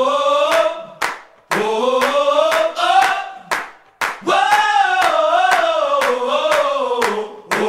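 Background music in a stripped-down passage: wordless choir-like group vocals held and sliding in pitch, over hand claps about twice a second, with no bass.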